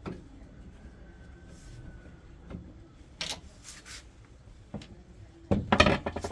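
Scattered clicks and knocks from handling a washing machine's metal cabinet and back panel, then a loud, rapid rattling clatter for about half a second near the end.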